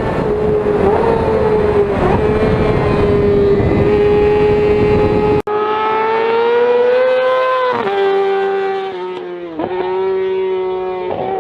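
Yamaha R6 inline-four sport-bike engine at high revs, a loud high-pitched scream held at a steady pitch. After an abrupt cut about five seconds in, it pulls through the gears, the pitch dropping sharply at each of three upshifts.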